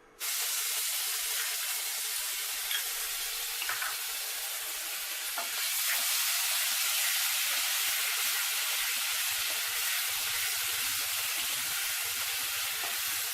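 Garlic paste frying in hot oil in a kadhai: a steady sizzle that starts suddenly as the paste goes in, with a few faint taps as it is worked in the pan.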